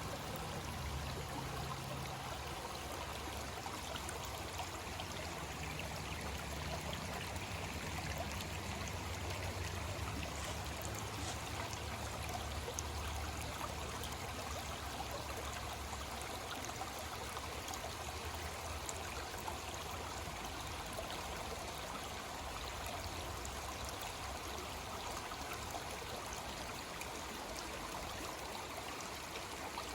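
Creek water flowing steadily, a continuous rushing and trickling sound.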